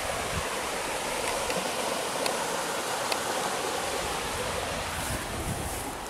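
Steady rushing of a woodland stream's flowing water.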